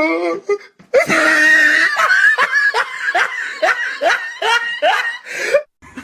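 A person laughing: a drawn-out first laugh, then a run of quick "ha-ha-ha" pulses, about three a second, that stops shortly before the end.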